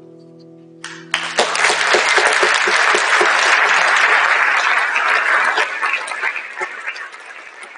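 A guitar's last chord rings out and dies away. About a second in, an audience starts applauding; the clapping is dense at first and thins out near the end.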